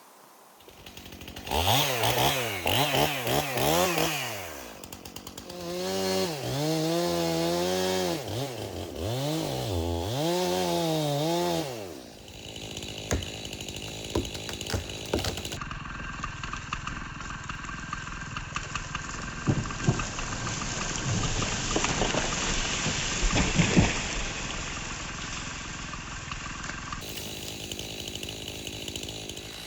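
Stihl MS291 two-stroke chainsaw comes up to speed about a second and a half in and is revved up and down several times. After about twelve seconds it runs more quietly and steadily, with a few sharp knocks.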